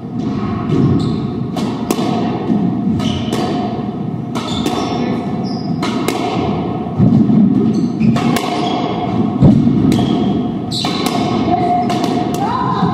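Squash rally: the ball struck hard by racquets and smacking off the court walls again and again, each hit echoing around the court, with players' footsteps.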